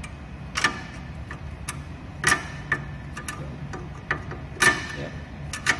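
Metal nut driver turning and clicking against the platform-leveling nut of a Moai SLA resin printer as the nut is tightened clockwise: several sharp, irregular clicks a second or so apart.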